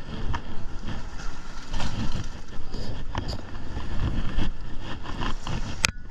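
Wind buffeting a handheld camera's microphone, with rustling and clicks from a stringer rope being handled. A sharp click near the end, after which the noise drops off suddenly.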